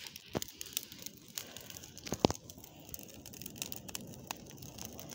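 Bonfire of dry leaves, flowers and newspaper crackling: irregular sharp pops over a low hiss, with a louder snap about half a second in and another about two seconds in.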